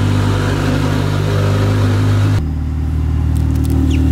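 Ferrari engine idling steadily. About two and a half seconds in, the sound cuts to a lower, duller version of the idle heard from inside the car's cabin, with a few faint clicks.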